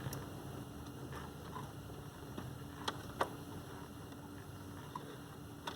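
A few faint clicks and taps from a stuck plastic relay being worked at in its socket, two sharper clicks close together about three seconds in, over a faint steady hum.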